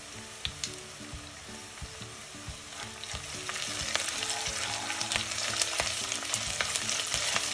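Sliced onions, garlic-ginger and a bay leaf sizzling in hot oil in a pot, stirred with a spatula that scrapes and taps against the pot. The sizzle grows louder about three seconds in, once the stirring starts.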